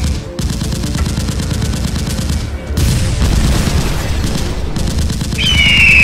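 Cartoon battle sound effects: rapid machine-gun-like firing over a low rumble, a rushing blast about three seconds in, and a loud falling screech near the end.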